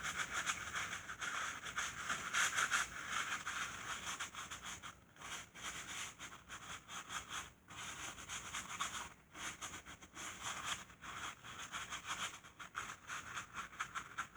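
A rag rubbing and wiping over an automatic transmission casing to clean off leaked fluid, in quick uneven scrubbing strokes with a few brief pauses.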